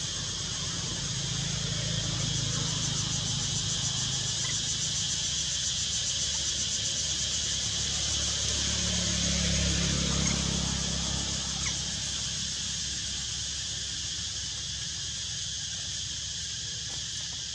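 Steady high-pitched insect chorus, with the low rumble of a passing vehicle's engine that swells about ten seconds in and then fades.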